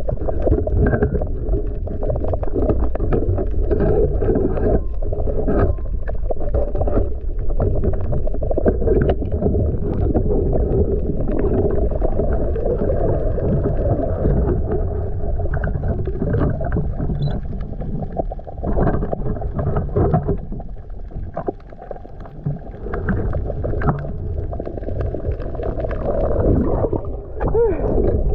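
Muffled underwater noise picked up by a submerged camera: a steady low rumble and sloshing with scattered small clicks and crackles. It eases off for a couple of seconds about three quarters of the way through, and there is a short rising gurgle near the end.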